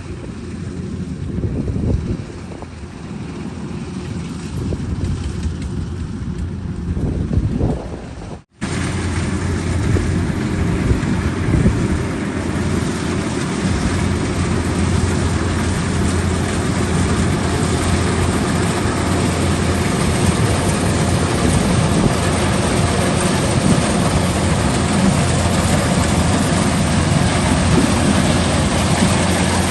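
Kubota rice combine harvester running steadily, a low engine hum under a wide mechanical din. The sound breaks off briefly about eight seconds in and comes back louder.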